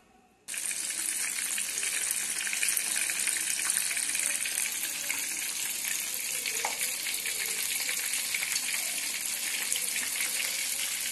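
Breaded, meat-and-cheese-stuffed onion rings deep-frying in hot oil in a pot: a steady, dense sizzle and crackle that starts abruptly about half a second in.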